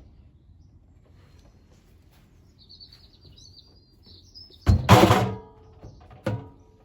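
A heavy thud at the washing machine as it is loaded, followed a second or so later by a lighter knock. Before the thud, a faint chirping is heard.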